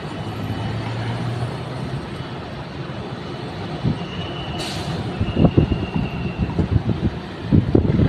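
Steady airport apron noise from a taxiing jet airliner and ground vehicles, with a thin high whine near the middle. Irregular low thumps of wind buffeting the microphone come in during the second half.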